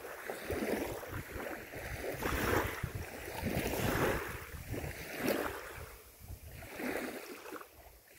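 Small waves lapping at a reedy river shore, swelling and fading every second or so, with wind rumbling on the microphone.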